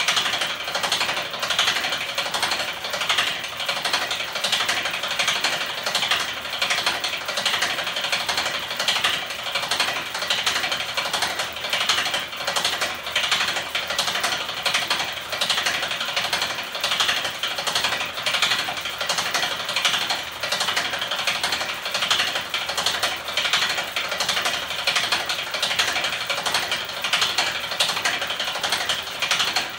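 Homemade magnet-engine machine spinning fast in its aluminium frame: a steady, rapid mechanical clatter of its rotating parts.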